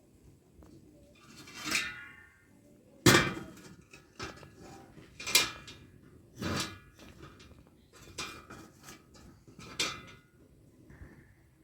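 Kitchen dishes and utensils clattering: about six knocks and clinks a second or two apart, each with a brief ring, the loudest about three seconds in.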